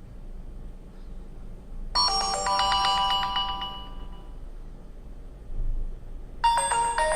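Ringtones on an HTC Desire 610 phone previewed one after another. A short, quick melodic chime tune starts about two seconds in and fades out, and a second ringtone tune starts near the end.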